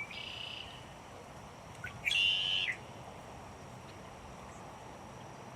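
A bird calling outdoors: a short call right at the start, then a louder call lasting under a second about two seconds in.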